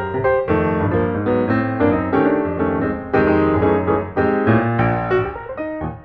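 Background piano music: a brisk run of notes and chords, several notes a second.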